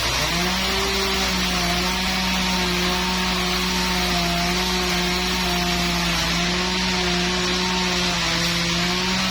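Sawmill saw cutting a trembesi (rain tree) log: a steady, pitched machine hum over a hiss, which rises in pitch at the start, then holds with small dips as the blade works through the wood.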